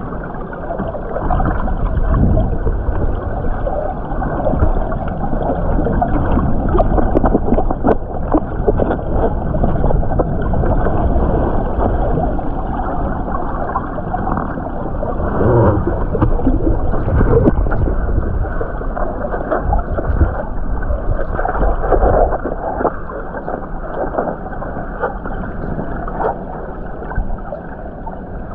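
Waterfall water churning and gurgling: a loud, steady, muffled rush, heaviest in the low end, that swells a little and falls back without a break.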